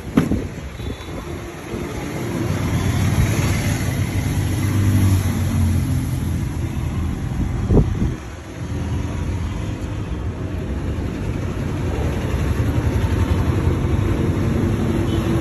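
Motor vehicle engine running with a low rumble that grows louder about two seconds in, with two sharp knocks, one at the start and one about eight seconds in.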